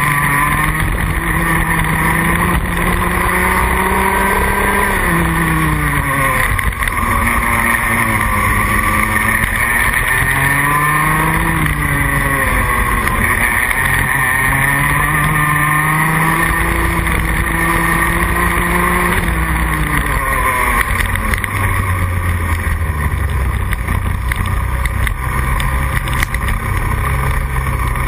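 Rotax Max Junior 125cc two-stroke single-cylinder kart engine heard from on board, revving up and falling back again and again as the kart accelerates and brakes through corners. Near the end it settles to a lower, steadier pitch.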